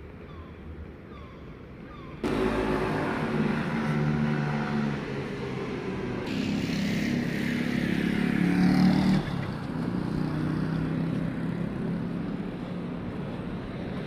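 Motor vehicle engine running close by. It comes in abruptly about two seconds in and stays steady, its pitch shifting a little, with a hissier stretch in the middle before it eases off.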